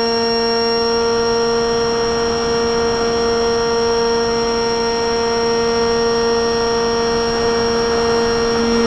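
Motor and propeller of an XE2 flying-wing RC plane, heard from its onboard camera, holding one steady pitch at a constant throttle, over the rush of air past the airframe.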